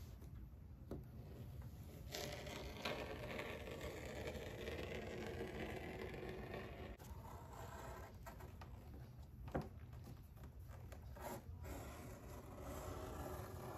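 Knife blade drawn through thick leather hide in slicing strokes, a faint scraping, with a few light clicks. Near the end the stiff leather is lifted and handled, rustling against the table.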